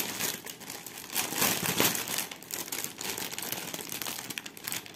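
Packaging of a cross-stitch kit crinkling and crackling as it is handled and opened by hand.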